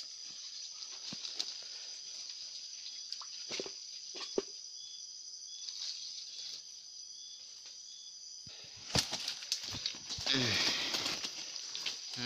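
Steady, high-pitched insect chorus running throughout, with a few soft knocks and, about nine seconds in, a couple of seconds of louder rustling noise.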